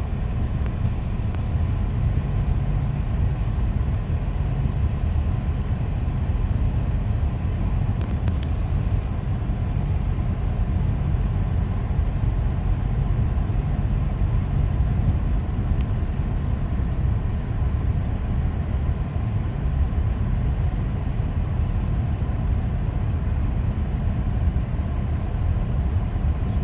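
Steady road and engine rumble inside a moving car's cabin, a low even drone with no change in pace.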